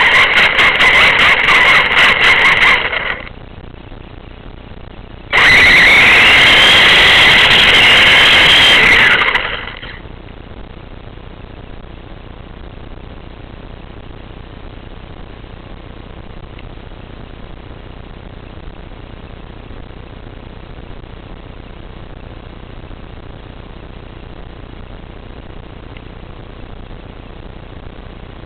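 Car engine running loudly, heard inside the cabin, stopping about three seconds in. Two seconds later a loud high whine starts suddenly, rises in pitch, holds for about four seconds and falls away, leaving a low steady hiss.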